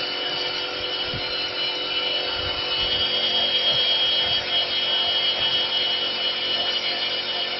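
Router spindle of a CNC wood lathe carving a turned wooden post in four-axis engraving mode: a steady high spindle whine over the rasp of the bit cutting wood, a little louder from about two and a half seconds in.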